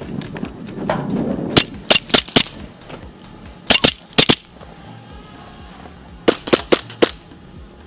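Airsoft guns firing: about a dozen sharp snapping shots in three quick clusters of three or four shots each.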